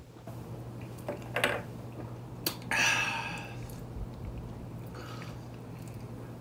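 Wet sucking and mouth sounds from a person biting into a lime wedge, with a sharp click about two and a half seconds in and a louder burst of about half a second just after it.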